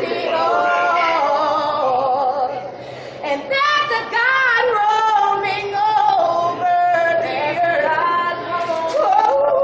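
A woman singing unaccompanied, with long held notes that waver in pitch.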